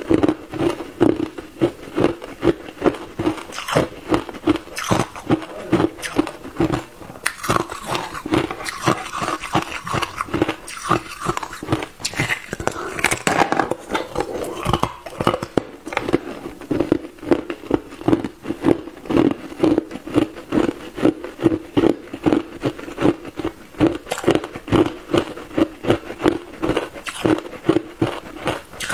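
Hard ice cubes being bitten and chewed close to a clip-on microphone: crisp crunching and cracking in a steady chewing rhythm.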